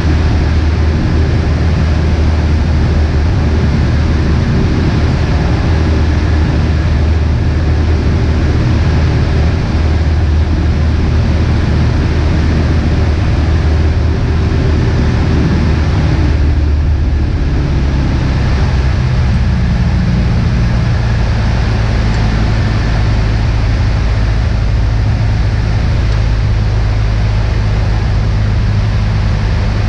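Beechcraft Musketeer's piston engine and propeller droning steadily in flight, heard inside the cabin. The tone of the drone shifts about eighteen seconds in.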